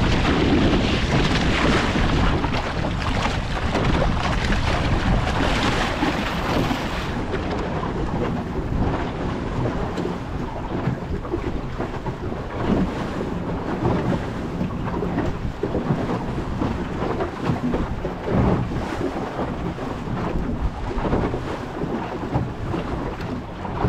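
Water rushing and slapping along the hull of a small wooden canoe yawl under sail in choppy water, with wind buffeting the microphone in a low, steady rumble. The rushing is strongest over the first several seconds.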